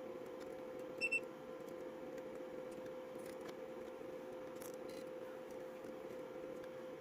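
Two short, high electronic beeps about a second in, over a steady low hum, with scattered faint clicks.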